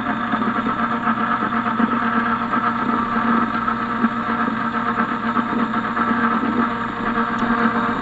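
Small submersible pump in a plastic bucket running with a steady electric hum, draining the dehumidifier's collected water out through its hose.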